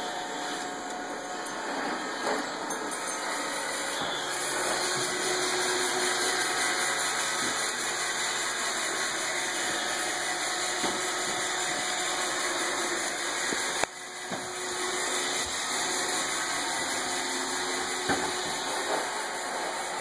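Robot vacuum cleaner running, a steady hiss from its motor and brushes, with a few brief knocks.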